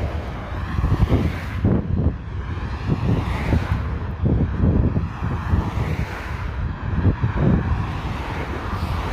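Wind buffeting the microphone in gusts, with the hiss of road traffic passing now and then.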